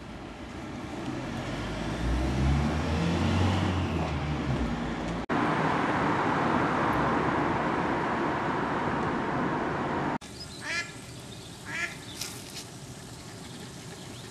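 Loud rushing noise with a deep rumble swelling over the first five seconds, then an abrupt cut to a steady rushing noise. At about ten seconds it cuts to a quieter outdoor background, with a few duck quacks in the last few seconds.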